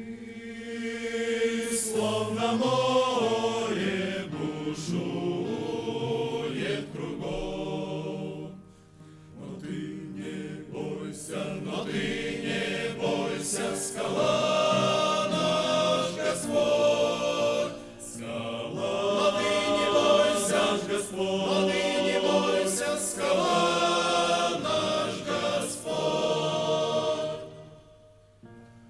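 A choir singing a Christian song in long phrases, with brief pauses between them.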